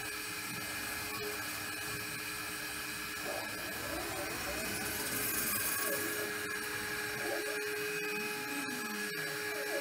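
Stepper motors of a DIY 5-axis CNC router whining in rising and falling glides as the head swivels and moves to a new position, over steady machine tones.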